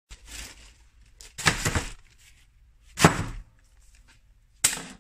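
A long parcel of tubing wrapped in plastic and tape landing on a plywood floor: a soft knock near the start, then three heavy thumps about a second and a half apart.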